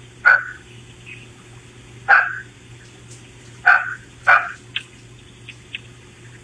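A dog barking: four loud single barks one to two seconds apart, with a few fainter short sounds between them.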